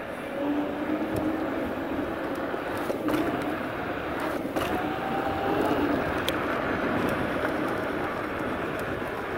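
Road vehicle noise: a steady rush with a faint humming tone that drifts in pitch, and a few short clicks.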